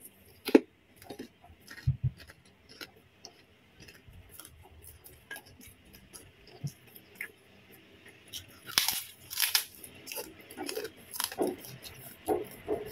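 Close-up eating sounds: soft chewing and mouth clicks as food is picked from a bowl by hand and eaten, with a few louder sharp clicks about nine seconds in.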